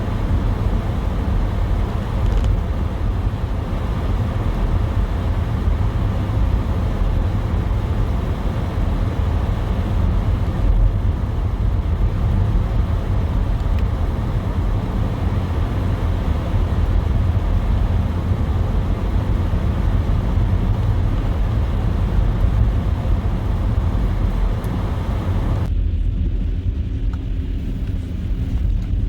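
A car driving through snow: a steady, loud low rumble of road and engine noise with a hiss above it. Near the end, the higher hiss drops away suddenly and the low rumble carries on.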